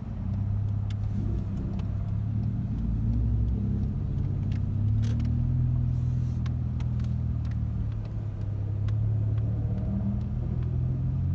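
Car engine and road noise heard from inside a moving car's cabin: a steady low drone that swells and eases a little as the car drives.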